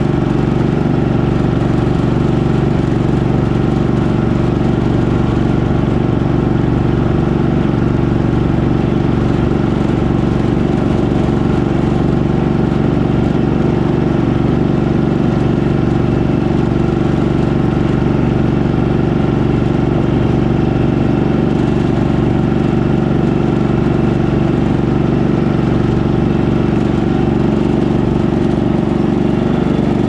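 Craftsman GT6000 garden tractor's engine running steadily as the tractor pushes snow with its front plow blade.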